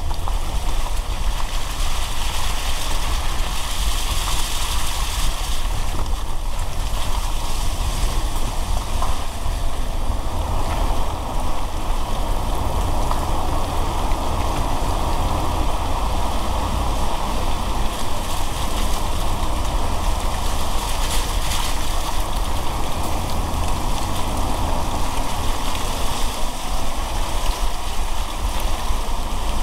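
Car driving on a wet road in rain: a steady hiss of rain and tyre spray over a constant low road rumble.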